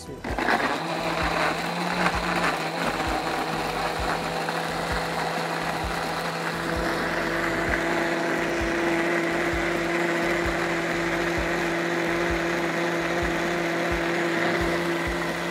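Countertop electric blender running steadily as it purees shallots, garlic, chillies and tomato with broth into sambal; it starts suddenly at the outset.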